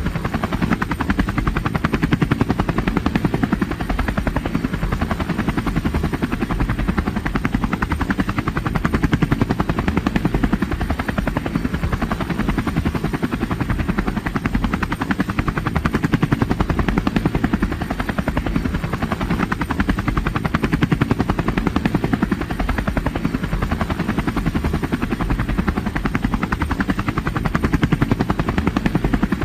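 Helicopter rotor blades chopping steadily in a fast, even rhythm, with a heavy low-pitched thudding and engine noise beneath.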